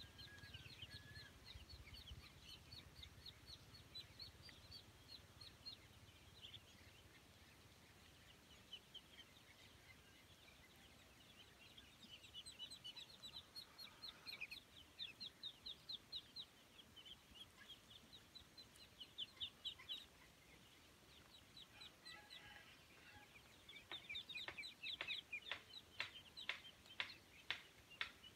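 Ducklings and chicks peeping: faint runs of quick, high-pitched peeps that come and go, loudest near the end.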